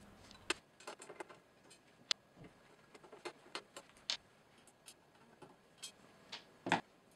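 Phillips screwdriver backing out the side screws of a KitchenAid KV25G stand mixer's head: faint, irregular small metal clicks and ticks, with a couple of sharper clicks.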